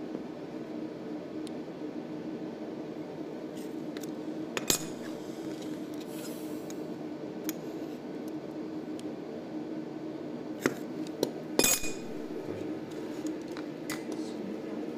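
Sharp metallic clicks and clinks as a steel digital caliper and a thin stainless steel sheet are handled on a metal bench, one about a third of the way in and a quick cluster about three quarters through, over a steady low machine hum.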